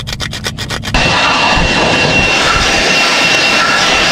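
Sandpaper scraping quickly back and forth over distributor points, about ten strokes a second. About a second in, a steady hiss of brake cleaner spraying takes over, with a thin whistle over it.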